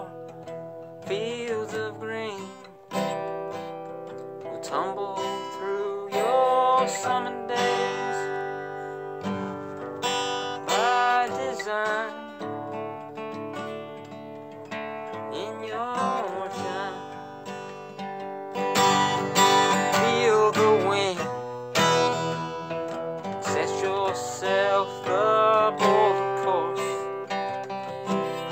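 Acoustic guitar strummed and picked steadily, with a voice holding wavering sung notes over it at times.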